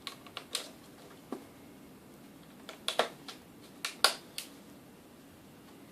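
Sharp plastic clicks and knocks of a VHS camcorder being handled, about a dozen irregular clicks with the loudest two about three and four seconds in.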